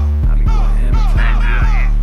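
Hip-hop beat: heavy sustained bass notes under a repeating melodic riff, with no rapping yet.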